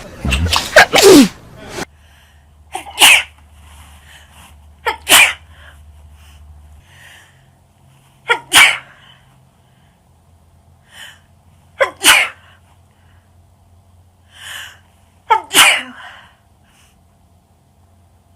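A person sneezing hard in a fit, about six loud sneezes in a row, roughly three seconds apart, with fainter breaths in between.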